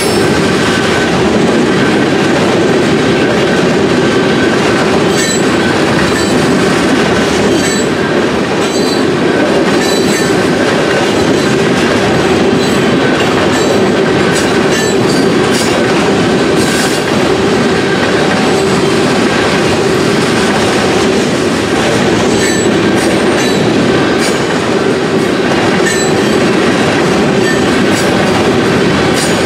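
Tank cars of a CSX freight train rolling past close by: a steady, loud rumble of steel wheels on rail, with wheels clicking over rail joints at irregular intervals and a thin high squeal that comes and goes.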